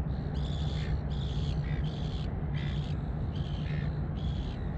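A bird calling over and over in short calls of even pitch, about one a second, over a steady low hum.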